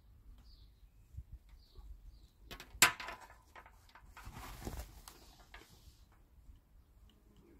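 Handling noise from fitting plastic airline tubing and an air stone to a small solar pond air pump: soft clicks and taps, one sharp click a little under three seconds in, then a rustle of plastic from about four to five seconds in.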